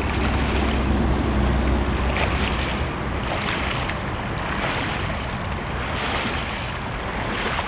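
Shallow creek water rushing over rocks, with wind rumbling on the microphone during the first few seconds. Wading steps slosh through the water about once a second.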